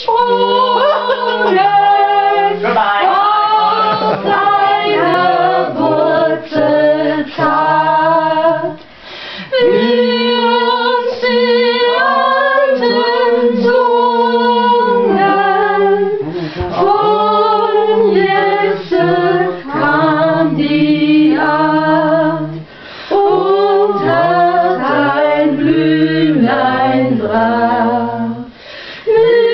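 A small mixed choir of men's and women's voices singing a cappella in harmony, in long held phrases with short pauses for breath every six or seven seconds.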